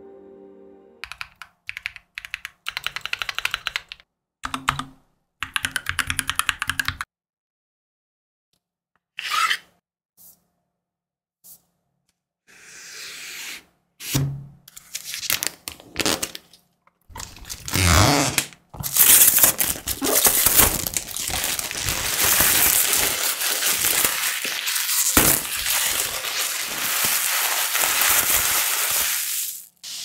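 Mechanical keyboard keys clicking in short bursts of typing for the first several seconds. After a few scattered knocks and handling sounds, clear plastic shrink wrap on the keyboard box crackles and rustles continuously for the last dozen seconds as it is handled and torn off.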